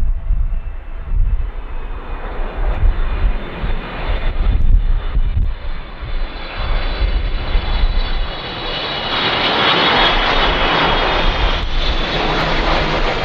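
Boeing 777's GE90 jet engines on final approach at landing power, growing louder as the airliner comes close and passes by. A high engine whine builds over the last few seconds.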